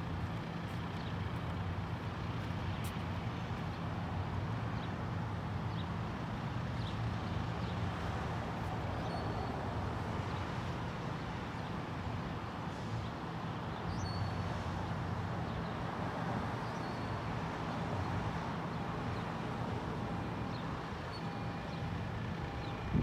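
Steady low engine hum under outdoor background noise, with a few faint high chirps.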